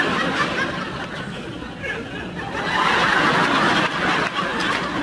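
A group of people laughing and chattering, getting louder about three seconds in.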